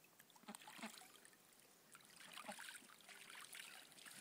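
Faint, irregular splashing of mallard ducks bathing in a small pool of water.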